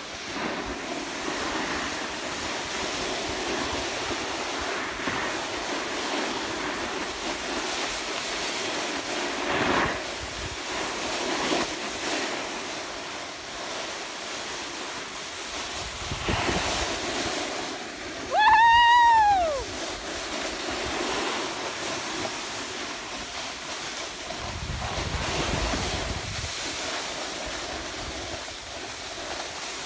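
Wind buffeting the microphone: a steady rushing noise throughout. About two thirds of the way through, one short high-pitched call rises and then falls in pitch.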